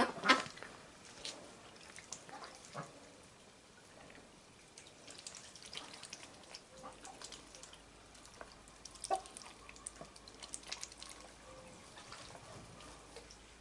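Poultry drinking and dabbling in shallow plastic water tubs: scattered soft splashes, drips and small clicks, with a few louder ones about a second in and near the middle.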